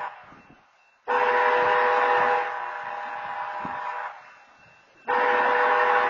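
BNSF diesel locomotive's multi-chime air horn sounding the grade-crossing signal: the tail of one blast, then a long blast of about three seconds, then a short blast of about a second near the end. It is part of the long-long-short-long pattern that announces the train is about to cross the road.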